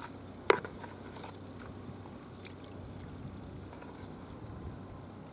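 Steady seaside background of water and wind, with one sharp knock about half a second in and a few faint clicks after it.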